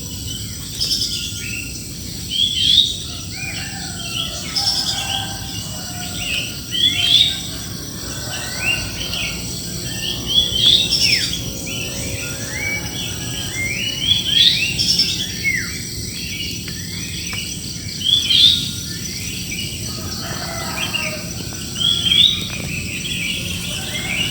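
Many birds chirping and calling together in a dense chorus of short, overlapping notes that slide up and down in pitch.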